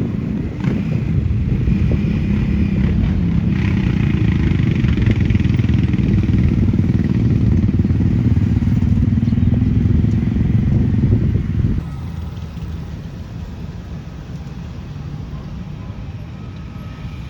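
Large vehicle engine running close by, a steady loud low rumble. About twelve seconds in it drops abruptly to a quieter low engine hum.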